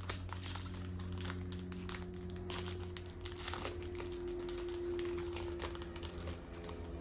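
Foil trading-card pack wrapper crinkling as it is handled and opened by hand: a steady crackle of many small sharp clicks.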